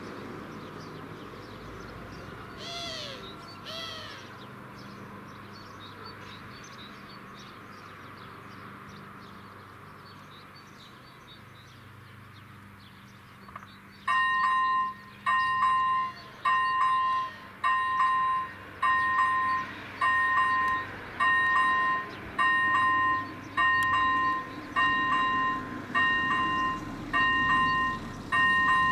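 Quiet outdoor background with a bird calling twice. About halfway through, the AŽD 97 level-crossing signal's electronic bell starts up: a two-pitch ding repeating about once a second, warning that a train is approaching.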